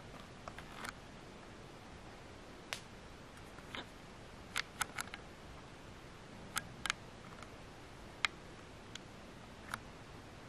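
About a dozen short, sharp clicks and crackles at irregular intervals over a faint steady hiss, several close together around the middle.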